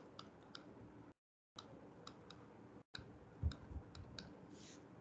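Faint, irregular clicks of a stylus tapping and scratching on a pen tablet while a word is handwritten, with a soft low thump midway. The sound cuts out to dead silence twice, briefly.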